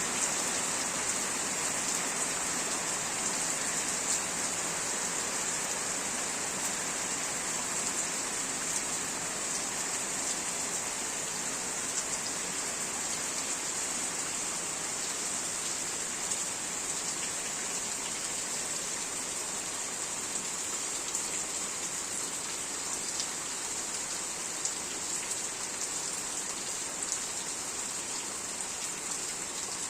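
Steady rain falling: a continuous hiss with scattered individual drop ticks.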